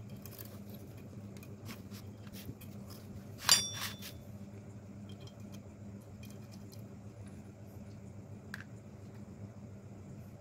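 Small metal valve parts clicking and clinking as valve springs and retainers are fitted onto a Honda Shine cylinder head during valve reassembly. One sharp, ringing metal clink comes about three and a half seconds in, and a smaller click comes near the end.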